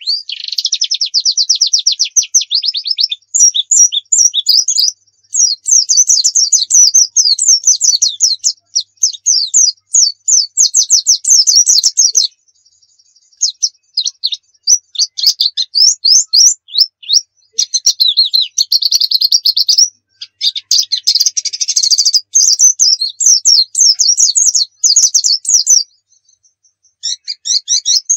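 White-eye (pleci) singing a loud, high-pitched song of rapid trills and chattering notes in long runs of several seconds, with brief pauses about twelve seconds in and again near the end.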